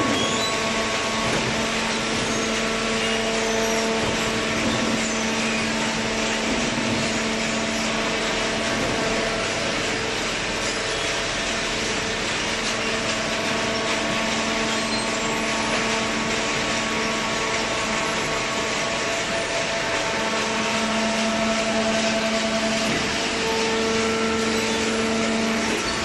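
Horizontal hydraulic baler plant running steadily: a continuous mechanical hum with a few held tones that swell and fade over a constant hiss.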